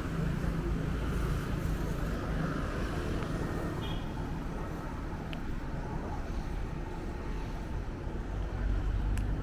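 Street traffic going by, with a steady low rumble of wind on the microphone from a moving bicycle. A short high tone about four seconds in and two sharp clicks near the end.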